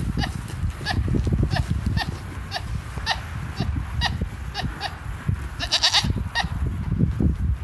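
A goat making short, high chirping calls, about two a second, with a quick run of several chirps near the end, over a low rumbling background noise.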